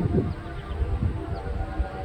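ACA Penetrator-50 tornado siren sounding its attack signal, its tone faint beneath heavy wind rumble on the microphone.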